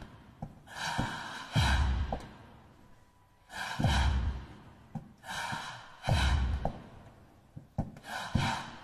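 Amplified group breathing from a troupe of performers: a series of loud, sharp gasps and exhalations, every two seconds or so, each opening with a deep thud.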